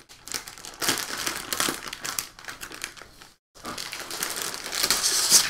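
Anti-static plastic bag crinkling as it is handled and pulled open around a pen display, with a brief pause about three and a half seconds in and the loudest rustling near the end.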